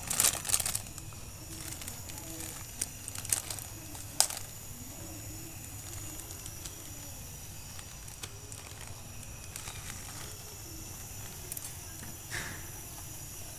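Portable camping stove burning steadily under a pot of boiling water, a low continuous hiss. A few crinkles and sharp clicks come in the first seconds, with single clicks a few seconds later.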